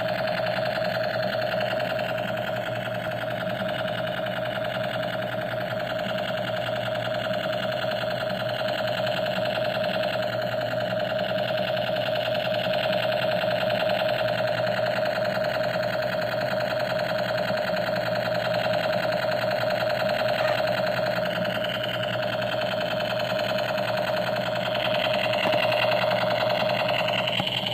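A small motor running with a steady buzz at a constant pitch, holding unchanged almost throughout.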